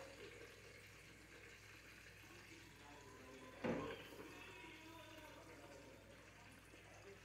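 Faint steady sizzle of hot oil in a deep fryer as battered catfish fries, with a single sharp knock about halfway through.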